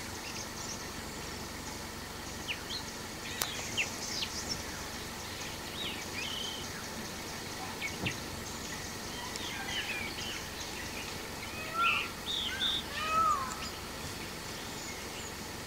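Birds calling: scattered short chirps and whistles over a steady background hiss, with a few louder curving calls about twelve and thirteen seconds in.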